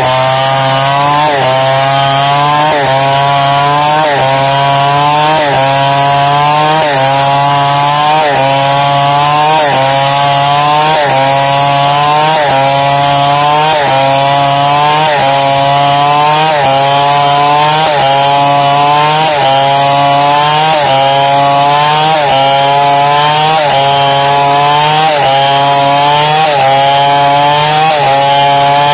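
Two-stroke chainsaw ripping lengthwise through a log to mill it into a plank, the engine under steady load with its pitch dipping and rising again about once a second.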